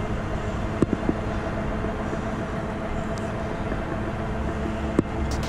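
IO Hawk Legend Lite electric scooter riding at about 20 km/h: a steady electric motor hum over wind and road noise, with a few sharp knocks about a second in and near the end.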